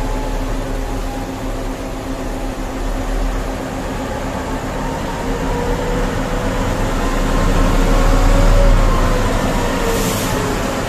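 Loaded BelAZ mining haul truck driving past close by, its engine drone and slowly shifting pitch growing louder to a peak about eight to nine seconds in, over the steady hum of the machine the sound is heard from. A short hiss sounds near the end.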